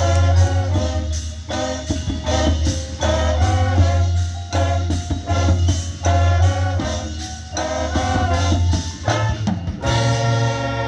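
Marching band playing: brass phrases over a steady low bass and percussion, repeating in short figures, then moving to a held full chord near the end.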